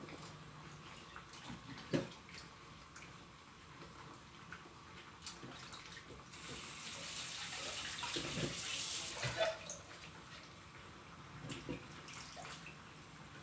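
Faint taps and rustles of a hand rolling small flour-dusted glutinous rice dough balls across a metal tray. A steady hiss starts suddenly about six seconds in, runs for about three seconds and is the loudest sound.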